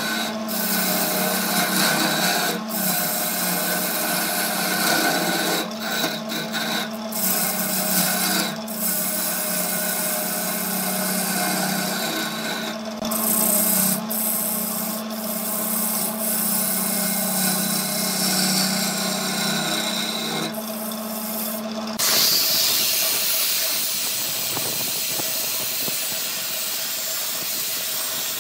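Wood lathe running with a steady hum while a hand-held turning tool scrapes into the spinning wood, the rasping cut broken by brief gaps as the tool lifts off. About 22 seconds in it cuts off suddenly to an even hiss of a power sanding pad against the spinning workpiece.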